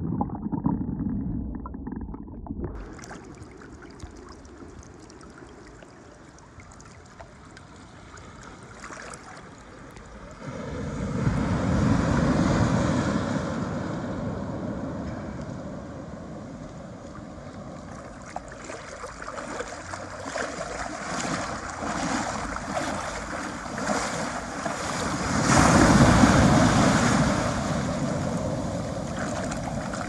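Gentle ocean surf heard from just under the water, muffled, for the first few seconds, then at the surface: small waves breaking and washing past onto a sand beach. One wave swells loud about ten seconds in, and the loudest one breaks and rushes up the sand near the end.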